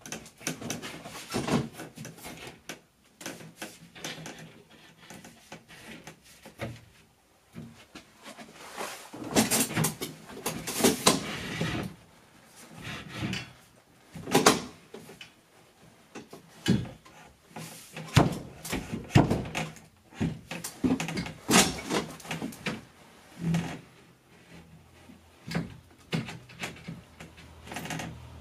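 A heavy sheet of type X drywall being lifted and pushed up against wooden ceiling framing: irregular knocks, bumps and scrapes as the board catches on a nail in the wall and is worked into place.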